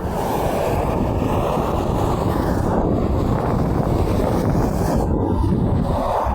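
Steady rumble of road traffic, with wind buffeting the microphone; no horn sounds.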